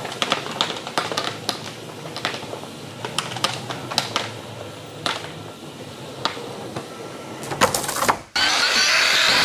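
Wheeled push floor sweeper rolling over concrete and picking up loose screws and debris: a low hum under many sharp clicks and rattles. About eight seconds in the sound drops out briefly, then a loud steady whir of a power drill starts.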